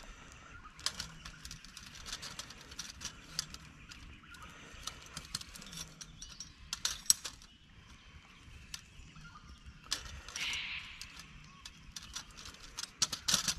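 Metal poles of a folding camp table frame being fitted together by hand: scattered light clicks, knocks and rattles, with a short scraping rustle about ten seconds in.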